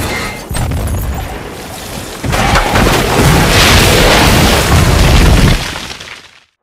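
Explosion sound effect: a rumbling noise, then about two seconds in a louder blast whose rumble holds for about three seconds before fading out.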